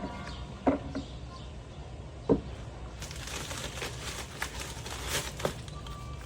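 Packaging being handled and unwrapped: a few sharp knocks of small pieces being set down, the loudest about two seconds in, then a stretch of plastic wrapping crinkling.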